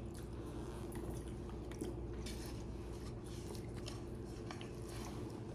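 Faint chewing and small wet mouth clicks of people eating a sandwich and salad, over a steady low hum.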